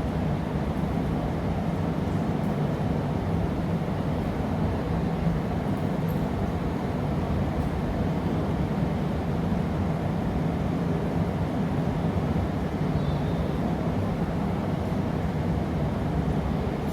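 Steady rumbling roar of a glassblowing workshop's gas-fired furnace and glory hole burners running, with a low hum and no breaks.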